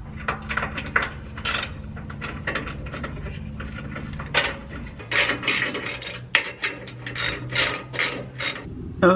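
Hand ratchet clicking as a socket wrench undoes the crossmember bolts: runs of quick metallic clicks, busier in the second half.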